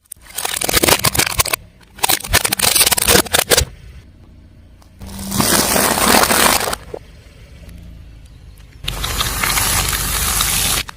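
Objects crushed under a car tyre: four separate bursts of crunching, cracking and scraping, the first two full of sharp cracks and the last two a denser, more even crackle.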